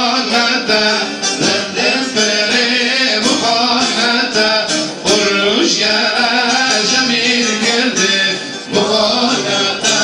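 Live Turkish folk song: several men singing into microphones, accompanied by a strummed bağlama (long-necked saz lute).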